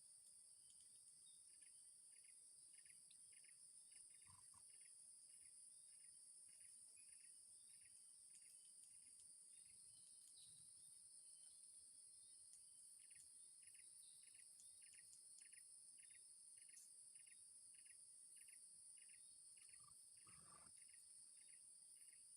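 Faint, steady high-pitched drone of insects. Over it, a short high chirp repeats about three times a second in two runs: one early, and one from about the middle to the end.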